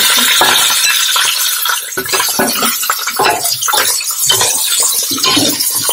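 Raw chicken pieces sizzling in hot oil in a stainless steel pot, with a metal spoon scraping and knocking against the pot as they are stirred. The sizzle is loudest for the first two seconds, after which irregular spoon knocks take over.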